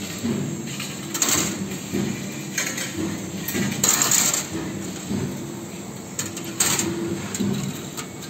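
3D CNC wire bending machine at work: its motors whir in short spells that start and stop, broken every second or two by sharp metallic clacks and clinks.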